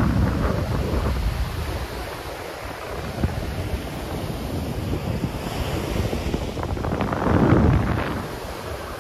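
Wind buffeting the microphone over a steady rushing noise, with a louder gust about seven and a half seconds in.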